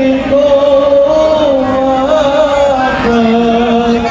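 A man singing a sholawat devotional chant over loudspeakers: long held notes with slow wavering ornaments, stepping down in pitch about three seconds in.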